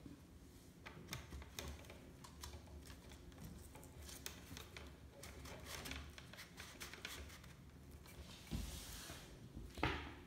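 Hands handling a plastic Nerf Raptorstrike blaster and its scope: scattered small clicks and taps, a brief rubbing scrape near the end, then one sharper click just before it ends.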